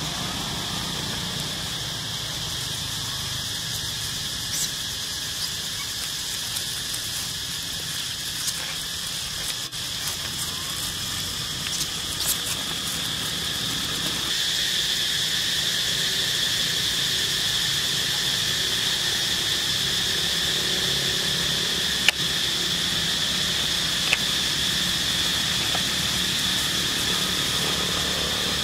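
Steady high-pitched insect drone, getting louder about halfway through, with a few faint clicks and rustles and two sharp ticks later on.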